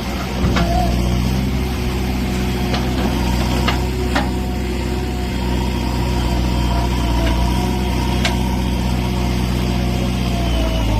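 JCB 3DX backhoe loader's diesel engine running steadily, with a faint wavering whine above it and a few brief knocks scattered through.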